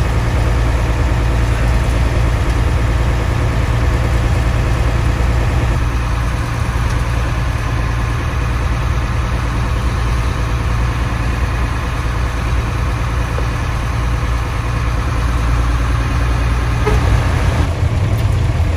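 Old Hino bus engine with a snoring exhaust, running on the road and heard from inside the cabin: a loud, deep, steady drone.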